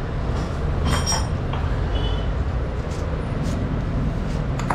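Metal engine parts clinking as a plate is handled and set in place on a scooter engine: one sharp ringing clink about a second in, then a couple of lighter ones. A steady low rumble runs underneath.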